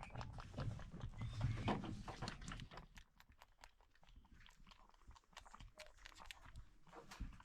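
Newborn goat kid suckling at its mother's teat: a run of quick wet sucking and smacking clicks, louder and busier in the first few seconds, then fainter.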